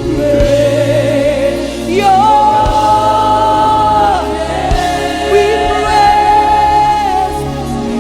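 Gospel worship music: a lead voice and choir singing long, held notes over a band with bass and a steady beat.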